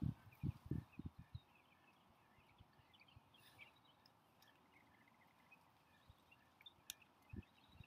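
Faint outdoor ambience of small birds chirping in the distance, a scatter of short high chirps. There are a few soft low thuds in the first second and a half and a single sharp click about seven seconds in.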